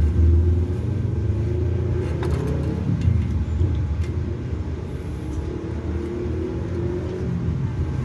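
Steady low rumble of a motor vehicle engine running, with a wavering hum above it and a couple of faint clicks about two and three seconds in.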